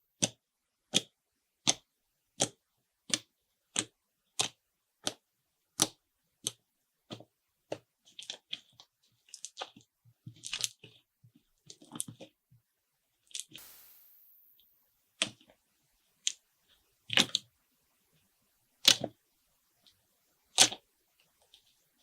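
A run of sharp, evenly spaced clicks, about one every 0.7 seconds, then several seconds of irregular crackling, then a few louder single clicks about two seconds apart.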